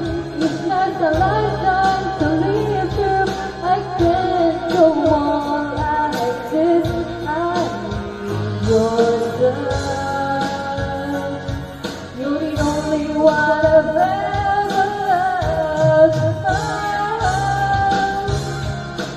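A woman singing a pop ballad over a karaoke-style backing track.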